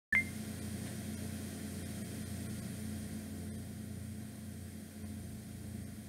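A steady low hum with faint hiss, opening with a brief click and a short high beep.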